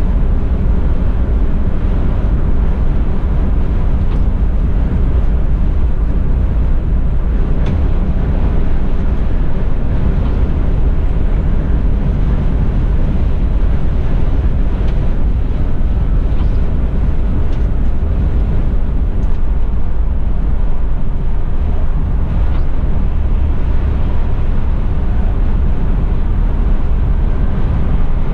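Cab noise of a Mercedes-Benz Tourismo coach at autobahn cruising speed, heard from the driver's seat: a steady low rumble of engine, drivetrain and tyres on the road.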